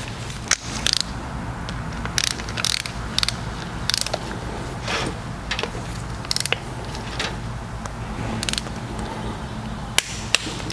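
Ratcheting torque wrench clicking in short irregular bursts as it runs down the T25 Torx bolts on a Chrysler 62TE transmission solenoid pack, torquing them to 53 inch-pounds.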